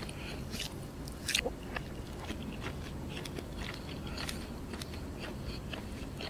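Close-miked chewing of crispy fried chicken: soft, irregular crunches and wet mouth clicks, a little louder about a second in.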